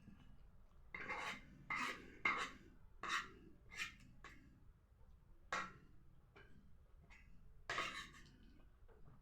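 Eating sounds from a meal of green grams, fried cabbage and chapati: a run of short scrapes of a utensil against a plate. About six come in quick succession, then a few more spaced out, with a longer one near the end.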